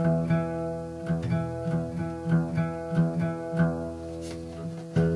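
Steel-string acoustic guitar with its low strings plucked over and over, a fresh note about every two-thirds of a second, each left to ring. The sixth string has just been dropped to D and is being sounded against the fourth string to check that the two match in pitch for drop D tuning.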